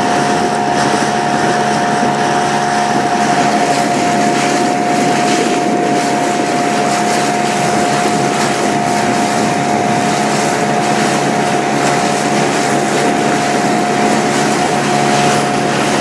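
Motorboat engine running at a steady speed, a constant unchanging tone over engine noise.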